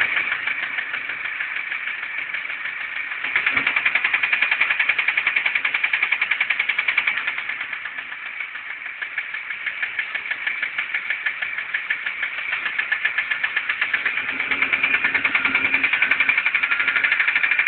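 ZMZ-406 inline-four petrol engine running with a fast, even knock in time with its rotation, a knock that appeared on a morning start and whose cause is unknown. It gets louder about three seconds in, eases off around the middle, and builds again toward the end.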